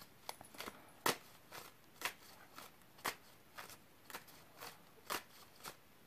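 A deck of tarot cards being shuffled and handled by hand: a run of soft, irregular clicks and snaps, about two a second.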